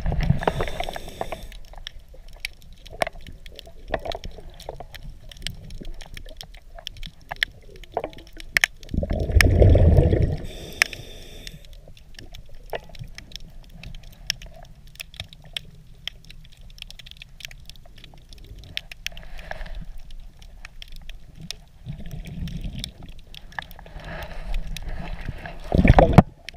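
Underwater sound: scattered sharp clicks and crackle throughout, with a loud low rush of a scuba diver's exhaled bubbles about nine seconds in and again near the end.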